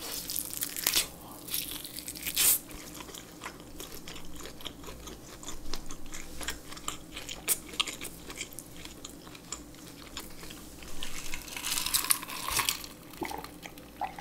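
Close-miked chewing of boiled pork belly and kimchi, with many wet mouth clicks and small crunches, and a louder stretch of crunching late on.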